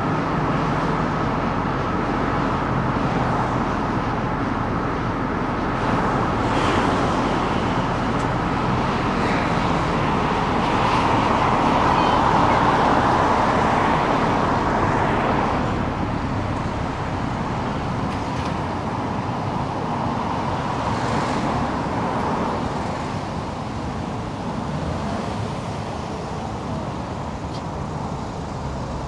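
Steady road noise of a car driving through city traffic: engine and tyre rumble. It swells louder for a few seconds near the middle, then eases off.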